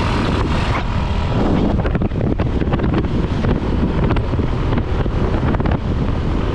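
Heavy wind buffeting the microphone on a moving vehicle, with engine and road rumble underneath, steady and loud throughout.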